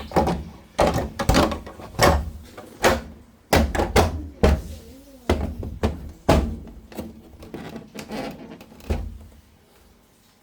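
A series of about a dozen hard knocks and thunks, irregularly spaced, from the washing machine and its parts being handled during a suspension-spring replacement; they stop near the end.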